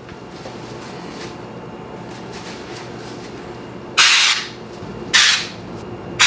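Aerosol can of Homax orange-peel wall texture spray fired at a ceiling in short bursts: two brief hisses about a second apart near the end, and a third starting just as it ends, over a low steady hum.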